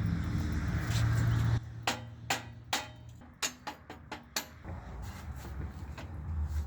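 A steady low hum that cuts off about one and a half seconds in, then a quick run of about nine sharp knocks over the next three seconds, from tools working on the mini bike's steel fork parts.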